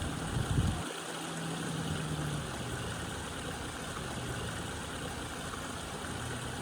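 Steady rush of flowing river water, with a low steady hum underneath for the first couple of seconds and a few low bumps about half a second in.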